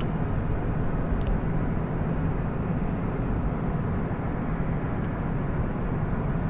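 Loud, steady turbine-like noise from the Petrobras Revap oil refinery: a constant rushing sound with a low hum under it, not rising or falling.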